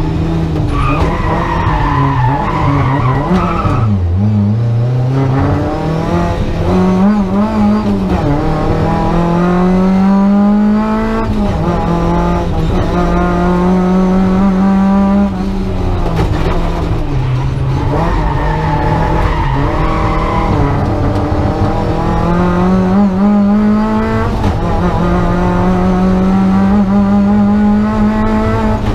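Lada 2107 1.3 kit car's four-cylinder rally engine heard from inside the cabin under hard acceleration, its pitch climbing through each gear and dropping sharply at every upshift, with lifts off the throttle for corners, several times over.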